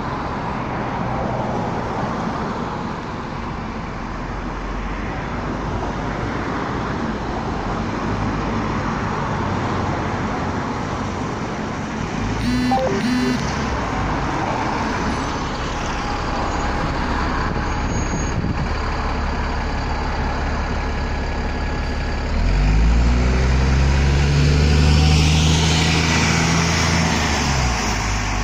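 Alexander ALX400 double-decker bus running its diesel engine, with a short, louder sound about halfway through. A few seconds before the end the engine revs up loudly as the bus pulls away, then falls off near the end.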